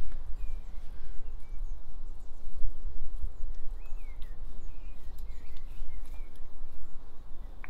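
Wind rumbling on the microphone, with birds chirping now and then.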